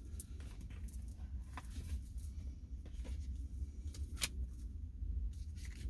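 Tarot cards being handled and laid out on a surface: scattered soft slides and light taps, with one sharper snap about four seconds in, over a steady low rumble.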